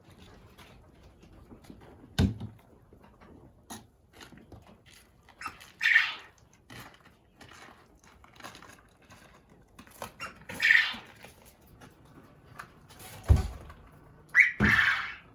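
Soiled animal bedding being cleaned out and dumped: three short rushing, scraping sounds as it is scooped or poured, and a few heavy thumps, one about two seconds in and two near the end.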